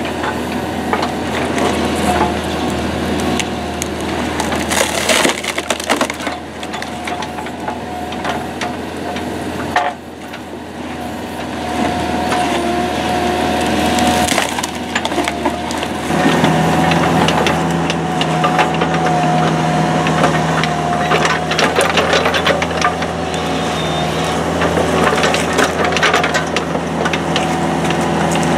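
Lasco Roli 10 screw cone splitter, driven from a 5-tonne mini excavator's hydraulics, boring into large beech logs: repeated sharp cracks and splintering as the wood splits apart, over the excavator running steadily with a constant whine.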